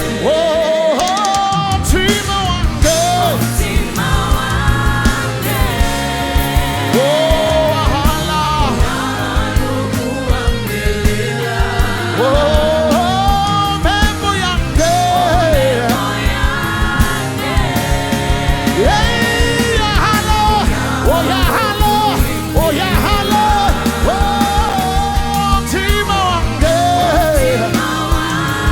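Live gospel worship band with singers performing a song: sung melody lines over drums that keep a steady beat and a full band sound.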